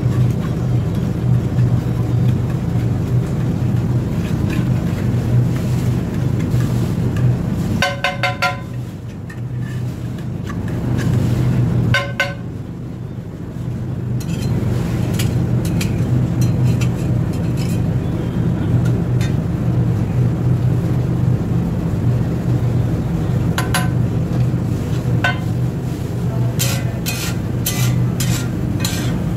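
A steel masher pounds and scrapes pav bhaji on a large flat iron tawa, over a steady low hum. The metal rings out in clinks about eight seconds in and again around twelve seconds. Near the end a flat steel spatula gives a quick run of sharp taps and scrapes against the tawa.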